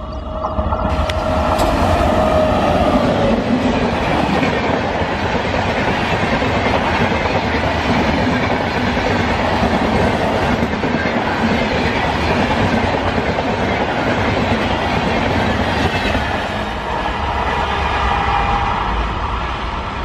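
WAP-7 electric locomotive and Duronto Express coaches passing at speed: a steady rush of wheel and rail noise with clickety-clack over the rail joints. It swells about a second in and eases near the end. A held horn note at the start drops in pitch as the locomotive goes by.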